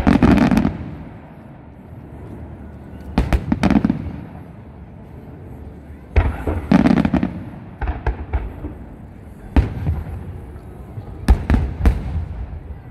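Aerial firework shells bursting at a distance: a string of booms and cracks every second or two, some in quick doubles and triples, each followed by a rumbling echo.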